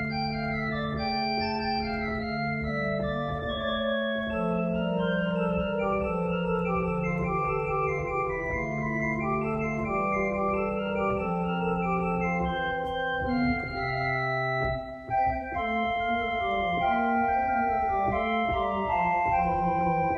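Organ playing the postlude at the close of a worship service: sustained chords over slowly moving held bass notes, with the upper voices changing every second or so.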